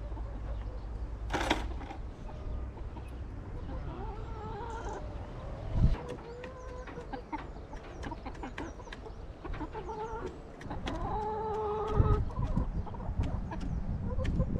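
Domestic hens clucking in short, repeated calls, with two dull low thumps, one about six seconds in and one about twelve seconds in.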